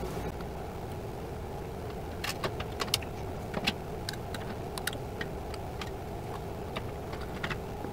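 Glass canning jars lifted out of a water-bath canner with a metal jar lifter and set down, giving scattered small clinks and taps over a steady low hum.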